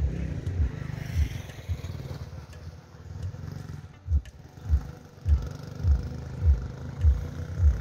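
Motorcycle passing close on a gravel road: a low engine rumble with regular low thuds, about two a second, from about halfway through.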